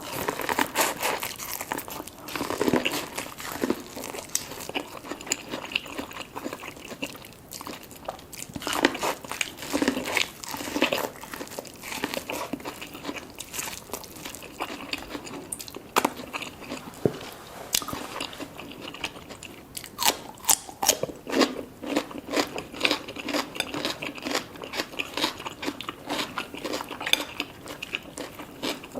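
Close-miked eating of a seafood boil: repeated wet, crunchy bites and chewing, with clusters of sharp clicks and crackles coming in bouts.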